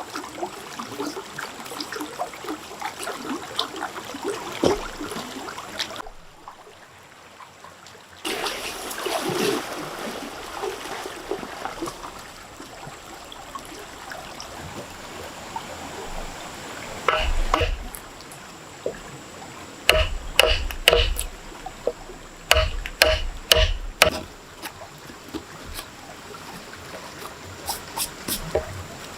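Water trickling and splashing. In the second half come clusters of sharp knocks, each with a short ring and a low thump: a hard object struck several times in quick succession.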